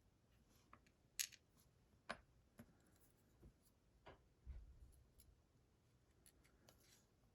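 Faint, scattered clicks and taps of small metal lock parts being handled while a pin-tumbler lock is taken apart, about half a dozen separate ticks with one duller knock near the middle.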